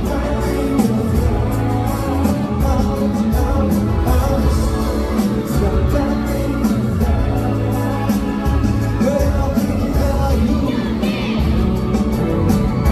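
Loud live pop/hip-hop music with a singing voice and a steady heavy bass beat, played over an arena's concert sound system during a sound check.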